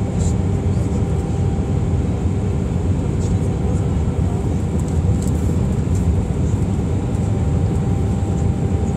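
Airbus A319 cabin noise during descent: a steady low rumble of the jet engines and airflow, with a faint steady hum on top, heard from inside the cabin.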